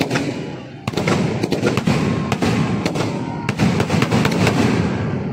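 Firecrackers bursting: one sharp bang at the start, then from about a second in a dense, irregular run of cracks and bangs over continuous crackling. These are the fireworks packed into a burning Ravana effigy.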